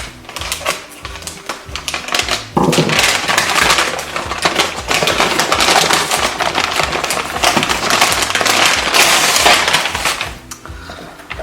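Packaging being torn open and handled while unboxing an espresso maker: a run of small clicks and taps, then about eight seconds of loud, dense crinkling and crackling that eases off near the end, over background music.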